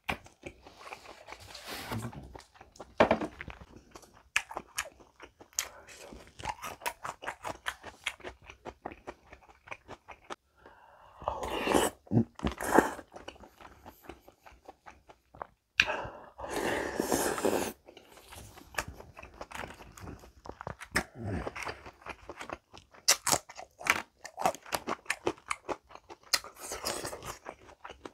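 Close-miked chewing and crunching of food, many short crisp bites and chews in quick succession. Twice, midway through, a longer, noisier sound lasts a second or two.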